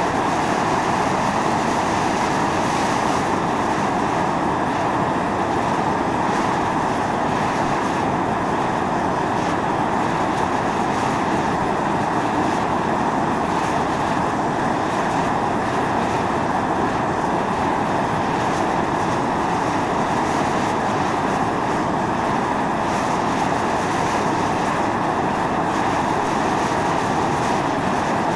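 Volcanic fumarole venting: a steady, loud hiss and rush of steam and gas jetting from the vent, even and unbroken.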